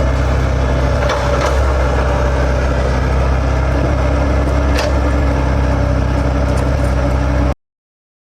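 Komatsu excavator's diesel engine running steadily at a low, even speed, with a few faint sharp clicks. It cuts off abruptly near the end.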